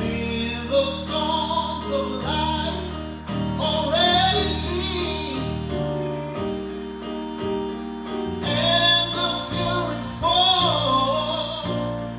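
Gospel singing, led by a woman's voice, over sustained instrumental chords. The singing falls away briefly in the middle and then resumes.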